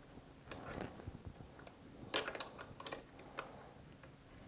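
Light metallic clicks and a short scrape from the gears and shift parts of an opened Subaru TY752 five-speed manual transmission being moved by hand as it is shifted toward fourth gear. A brief scrape comes about half a second in, and a cluster of sharp clicks between about two and three and a half seconds.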